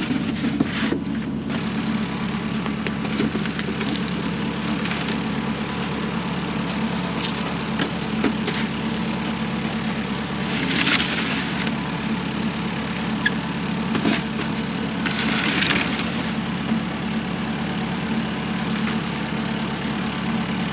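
Farm tractor engine running steadily, with scattered knocks and thuds of potatoes being loaded onto the wagon, and a couple of short rushing noises.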